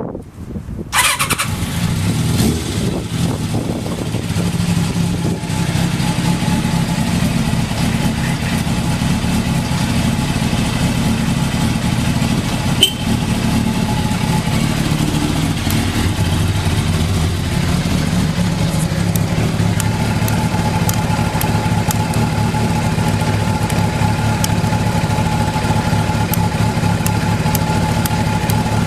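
Kawasaki ZZ-R1100 inline-four engine started on the electric starter, catching on the first press about a second in, then idling steadily. The idle is even with no abnormal noise, the sign of a healthy engine.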